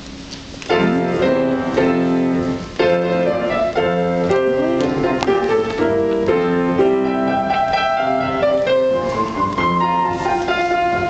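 A chamber choir singing held chords with piano accompaniment, starting suddenly about a second in.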